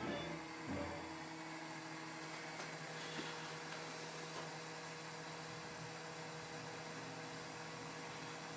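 Steady electrical hum with a faint hiss from running furnace-room equipment, after a brief low thump about a second in.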